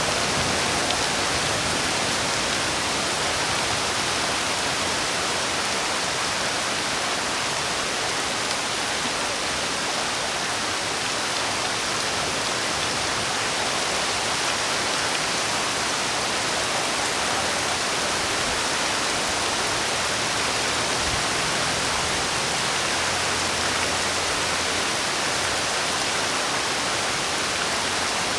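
Steady, even hiss of heavy rain falling, with no single drops or thunder standing out.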